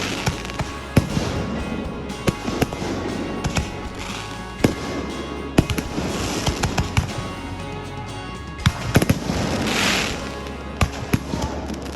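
Fireworks going off in quick succession: many sharp bangs with crackling bursts between them, and a longer hissing, crackling burst a little before the end.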